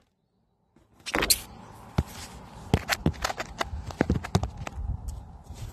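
Handling noise on a handheld phone's microphone: irregular knocks and rustles over a steady outdoor background, starting about a second in.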